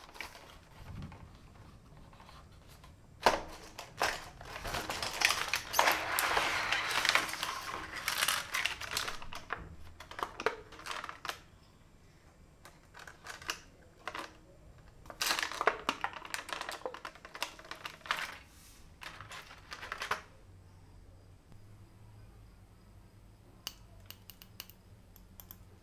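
Clear plastic blister packaging crinkling and crackling as it is handled and opened, in two long stretches. A few light clicks near the end.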